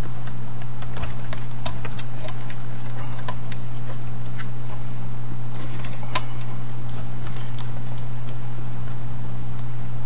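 Scattered light clicks and taps of fingers and the hard drive against the metal drive bracket inside an open desktop PC case, as the drive is pushed back in its bay. Under them runs a steady low hum.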